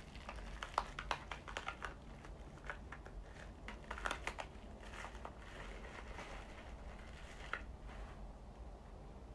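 Plastic wrapping crinkling in irregular crackles as it is pulled off by hand, thinning out near the end.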